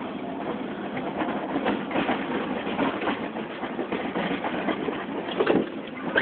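Chevrolet Silverado plow truck driving fast through snow: the engine runs under a steady rough rush of noise with many short knocks, and there is a louder burst about five and a half seconds in.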